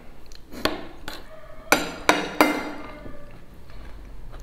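A metal utensil clinking against a plate several times while eating; the loudest three knocks come close together about two seconds in, each ringing briefly.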